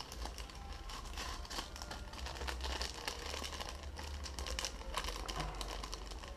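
Packaging being handled: crinkling paper and plastic with many small clicks and taps as items are taken out of a motherboard box.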